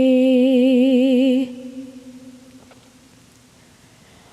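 A woman's a cappella voice holding the end of a sung note with vibrato, which stops about a second and a half in and leaves a faint fading tail.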